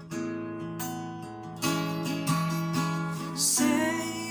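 Martin acoustic guitar playing an instrumental passage of strummed chords, a fresh chord struck roughly every second and left ringing.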